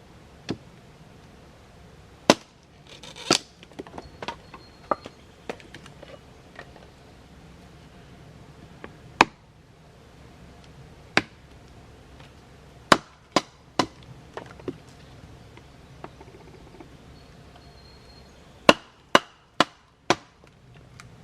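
Wood being chopped into kindling with a blade: sharp single chops at irregular intervals, some lighter taps between them, and a quick run of four chops near the end.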